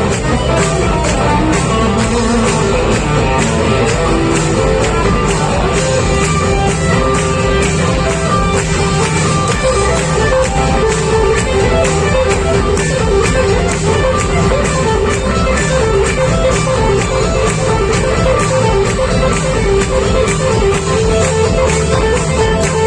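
Live rock band playing loud, with guitars, bass and a steady drum beat of about two strokes a second.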